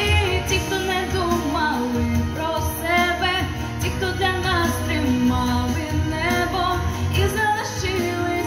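Female pop vocalist singing a ballad into a handheld microphone over a backing track with a steady low bass line.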